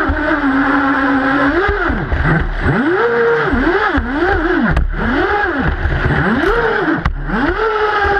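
Twin-motor Apparition RC boat heard from its onboard camera, motors whining steadily at first. Then the throttle is pulsed up and down about six times in quick succession, the pitch rising and falling with each pulse, before it runs steady again near the end.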